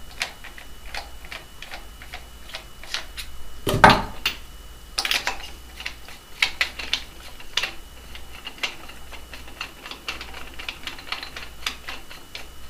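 Handling noise of a paintball marker's stock barrel being unscrewed and a barrel muffler kit screwed on in its place: a run of small irregular clicks and taps, with a louder knock about four seconds in.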